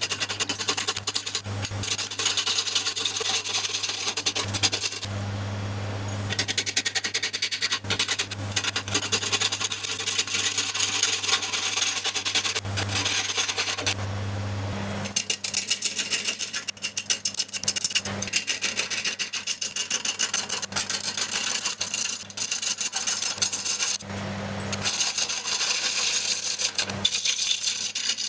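Gouge cutting a spinning ash burl blank on a wood lathe: a continuous rasping, crackling hiss of wood being shaved away. It breaks off briefly three times, leaving only a steady low hum from the lathe.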